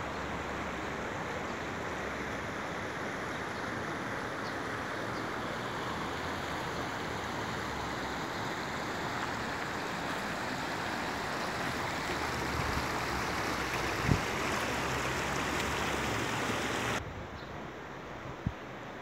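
Shallow river rushing over stones in small rapids: a steady wash of water noise that swells slightly, then falls suddenly quieter near the end. Two short thumps come through, one about three-quarters of the way in and another near the end.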